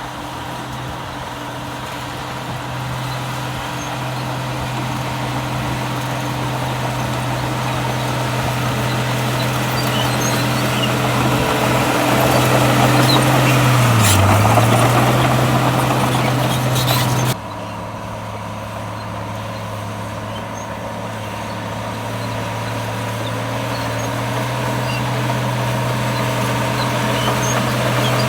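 Heavy diesel engine of earthmoving machinery running steadily, growing slowly louder. About halfway through its pitch sags briefly under load and recovers, and a few seconds later the sound drops abruptly.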